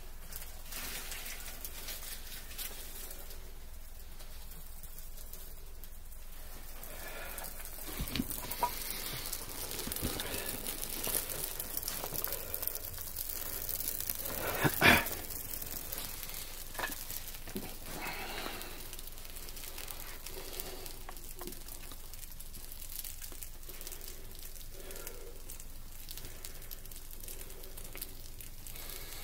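Small open fire of dry straw and wood burning, crackling over a steady hiss, with one louder snap about halfway through.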